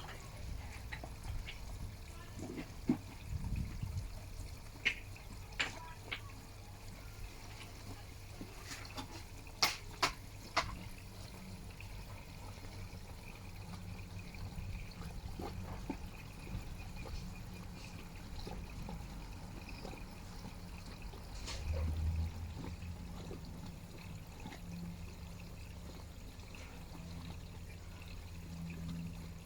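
Water steadily trickling and pouring into a koi pond, over a low hum, with a few sharp clicks and knocks in the first half.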